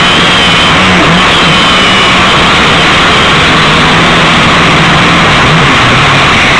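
Small camera drone's motors and propellers whirring loudly and steadily through its own onboard microphone, with a low hum that wavers in pitch as the motor speeds change and a faint high whine near the start.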